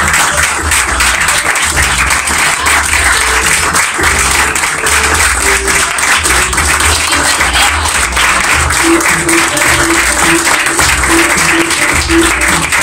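Audience applauding steadily over background music with a steady bass line and a short note repeating two or three times a second in the second half.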